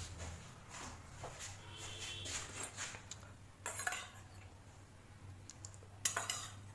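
A metal spoon scraping and clinking against a small stainless-steel bowl while yogurt is scooped out, in a scatter of short clinks, the sharpest about four seconds in and near the end.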